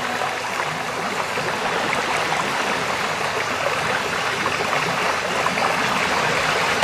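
Heavy rain falling steadily on a wet paved courtyard.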